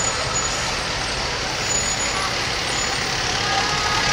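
Fire engine driving slowly past at close range, its diesel engine running with a steady, even noise.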